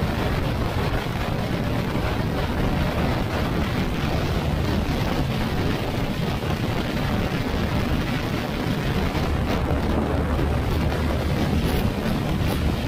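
Yamaha NMAX scooter riding at speed: steady engine and road noise under wind rushing over the microphone.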